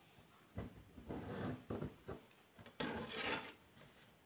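Paper and a plastic ruler sliding and rubbing on a wooden tabletop while a line is ruled in ballpoint pen on a paper pattern piece. There are a few irregular scraping rubs, the loudest around the middle.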